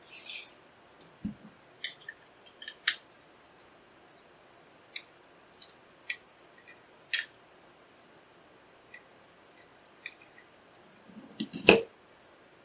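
Small sharp clicks and ticks of a precision screwdriver working the small I/O-bracket screws out of a graphics card, scattered irregularly. There is a brief rustle at the start and one louder knock near the end.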